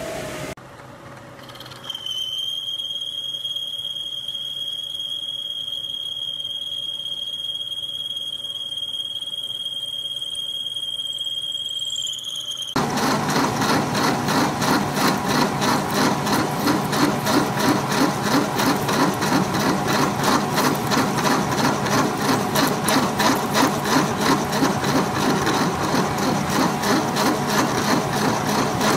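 Milling machine face-milling a 6061 aluminium plate: a loud, evenly pulsing cutting sound that starts abruptly about 13 seconds in. Before it there is a steady high-pitched whine.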